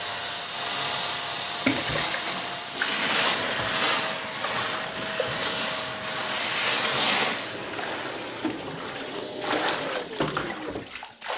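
Kärcher wet-and-dry vacuum sucking water out of a full sink, a loud rushing, gurgling slurp over the steady whine of its motor. The motor's tone drops away about ten seconds in as the noise thins out.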